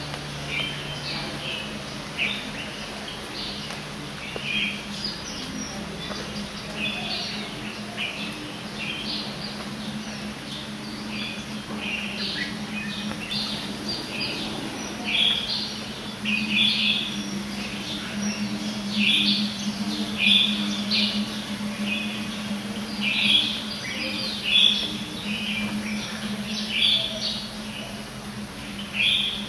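Many birds chirping and calling in short, quick notes, the calls growing busier and louder about halfway through, over a steady low hum.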